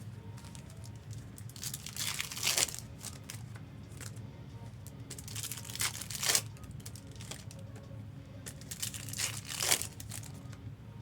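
Trading-card pack wrappers and chrome cards being handled: crinkling and rustling, with three louder swishes about two, six and nine and a half seconds in.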